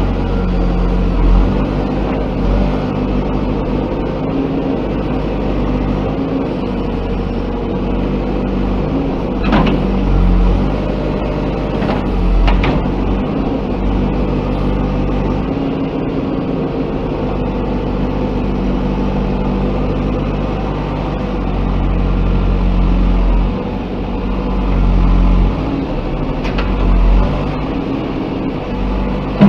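JCB 3DX backhoe loader's diesel engine running under load, its pitch rising and falling as the machine works. Two sharp knocks come about ten and thirteen seconds in.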